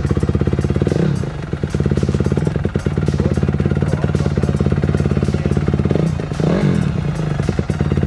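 2013 Honda CRF250R's single-cylinder four-stroke engine, fitted with an FMF exhaust, running at a fast idle and revved briefly twice, about a second in and again near the end.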